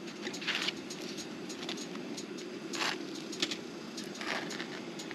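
A table knife scraping across toast as it spreads jelly: a few short, dry scrapes over a steady low hum.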